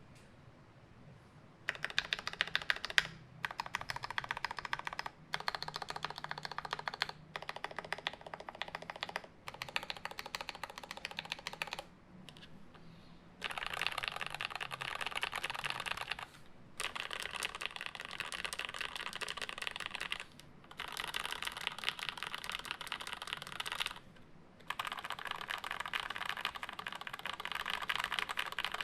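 Typing on a custom acrylic-plate Alice-layout mechanical keyboard with lubed UHMWPE switches in Gateron Milky housings and GMK keycaps. It comes in bursts of rapid keystrokes a few seconds long with short pauses between them, and the bursts grow denser and brighter about halfway through.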